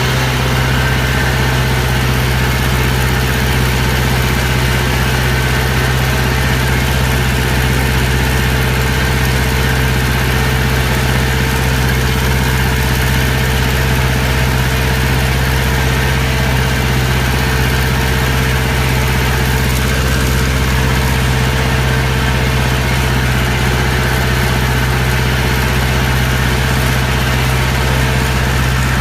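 A farm machine's engine running steadily at one even speed, with a constant low drone and no revving.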